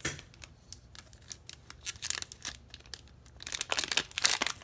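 Foil trading-card booster pack wrapper crinkling as it is handled, then torn open across the top, with a cluster of sharp rips near the end.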